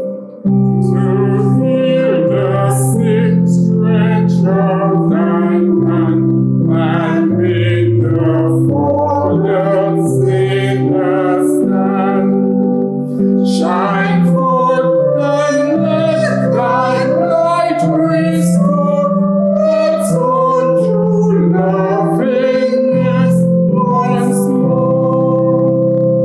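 A hymn sung by a female voice over steady held instrumental chords.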